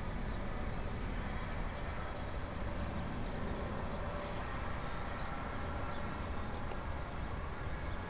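Wind buffeting the microphone, a steady rough low rumble, with a faint steady whine from an ATR 72-500's turboprop engines on the runway.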